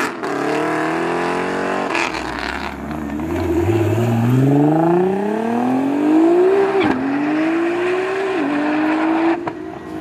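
Nissan GT-R accelerating hard away, its engine pitch climbing steadily and dropping sharply with an upshift about seven seconds in and another about a second and a half later. At the start, the engine of another car pulling away fades out.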